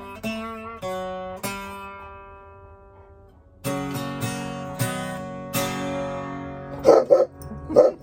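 Acoustic guitar picking the closing notes of a song, letting them ring and fade, then a final strum at about three and a half seconds that rings on. Near the end, two short loud sounds: a dog starting to bark.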